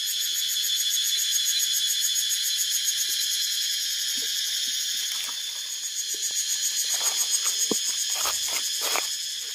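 Steady, high-pitched, fast-pulsing insect chorus shrilling in a dry forest. A few faint crackles come near the end.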